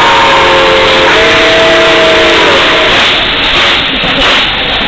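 Nickel Plate Road 765, a 2-8-4 Berkshire steam locomotive, blowing its steam whistle at close range. Several tones sound together, step up slightly about a second in, and die away about two and a half seconds in. Loud steady steam hiss runs under the whistle as the engine passes.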